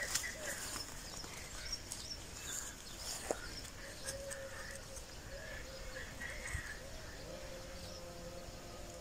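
Birds calling: a low, wavering cooing, with short higher chirps from small birds over it.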